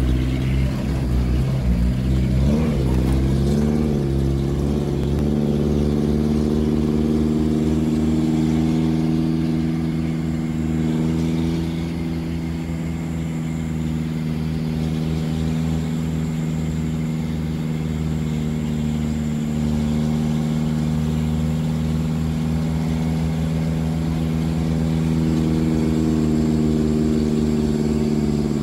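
Truck engine running steadily under way, heard from inside the cab, with a low rumble; its pitch wavers briefly about three seconds in, then holds.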